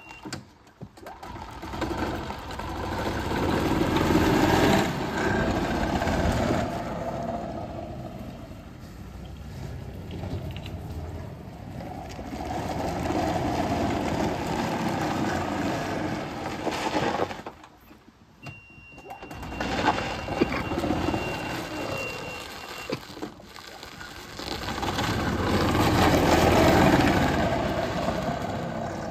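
Golf cart running as it drives around, getting louder and fading away several times as it comes close and moves off, dropping out briefly about two-thirds of the way through.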